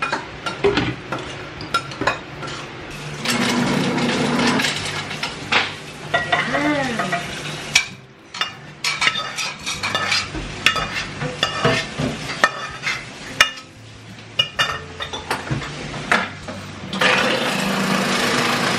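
Cookware clinking and scraping: a metal spoon against pans and a glass bowl, with stretches of sizzling from a frying pan on the stove.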